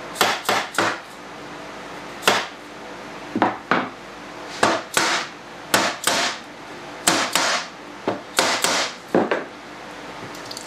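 Pink rubber mallet knocking on a clamped-up wooden cabinet door frame during glue-up, seating its joints flush. About sixteen sharp knocks, mostly in quick pairs or threes, with short pauses between groups.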